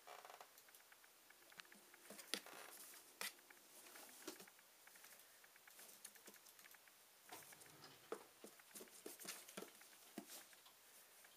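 A kitten playing with a cardboard box on carpet: faint, irregular scratches and taps of its paws and claws on the cardboard, with a few sharper knocks about two and three seconds in and a busier run of scrabbling near the end.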